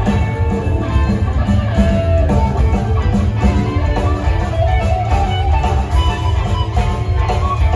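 Live blues-rock band playing: electric guitars over bass and drums, with a lead guitar line of held and bending notes on top.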